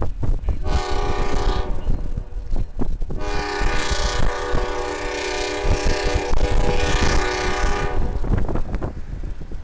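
Amtrak P42 Genesis locomotive's multi-chime air horn on an approaching train: a short blast, then a long steady blast of about five seconds. Low rumbling wind noise on the microphone runs underneath.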